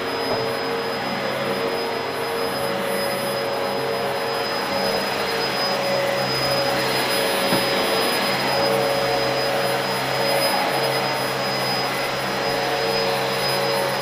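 Dyson DC04 Absolute Plus upright dual-cyclone vacuum cleaner running over carpet: a steady rush of air with a constant motor whine, a little louder around the middle as it passes close.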